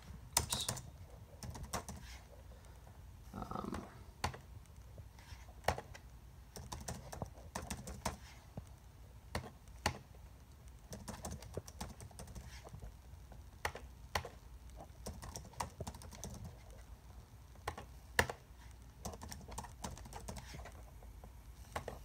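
Typing on a computer keyboard: irregular key clicks with pauses between runs of keystrokes, as numbers are entered.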